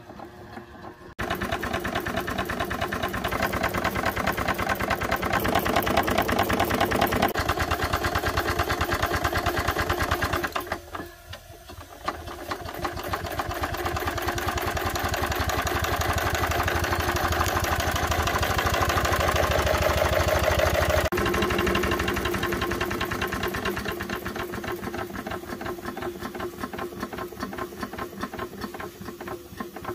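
A 3-inch scale freelance Burrell steam traction engine running, with a fast, even mechanical beat. The beat starts suddenly about a second in, drops away briefly around eleven seconds, and is quieter over the last few seconds.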